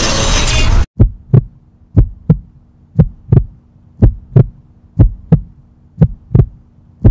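A loud rumbling boom cuts off abruptly about a second in. Then comes a heartbeat sound effect: six lub-dub double thumps, about one a second, over a faint low hum, with one more thump at the very end.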